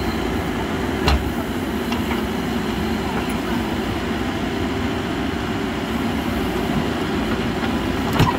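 Mahindra SX backhoe loader's diesel engine running steadily under load while the backhoe arm digs and lifts a bucket of soil. A sharp knock comes about a second in and another near the end.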